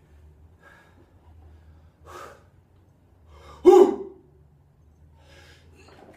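A weightlifter breathing hard while setting up over a barbell: a short breath about two seconds in, then a sharp, loud gasp a little before the four-second mark, and fainter breaths near the end.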